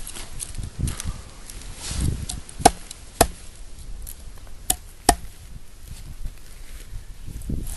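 Fiskars X15 axe chopping into a small stick of wood: four sharp chops in two close pairs, with light scraping and handling of the wood between.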